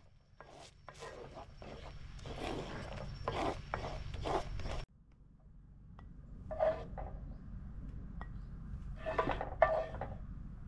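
Metal utensil scraping and clinking against cookware in a run of quick strokes, then a few sharper clinks that ring briefly near the end.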